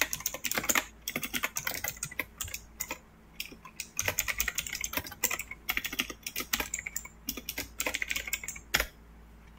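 Typing on a computer keyboard: quick bursts of key clicks with brief pauses, one about three seconds in and another near the end.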